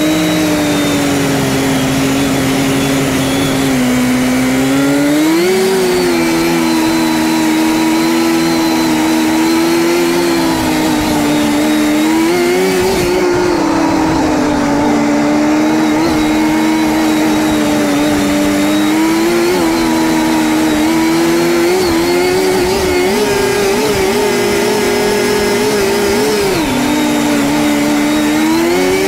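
A 1979 Scorpion Whip TKX snowmobile's two-stroke engine running under way on the trail, its pitch mostly steady with several brief rises as the throttle is opened, heard from the rider's seat and sped up to double playback speed.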